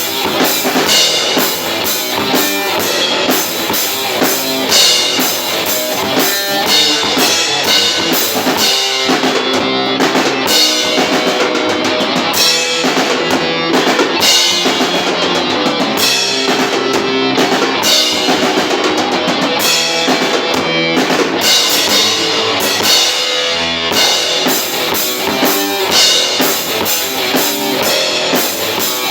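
A metal band playing live: drum kit with bass drum and cymbals driving a steady beat under electric guitar. The playing is loud and dense throughout.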